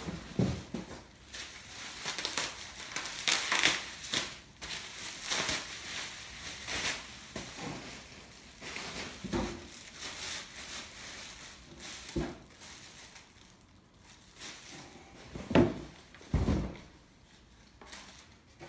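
Cardboard packaging being handled: rustling and scraping of the box and its folded inserts, with a few dull knocks in the second half. Near the end a plastic bag crinkles as a part is lifted out.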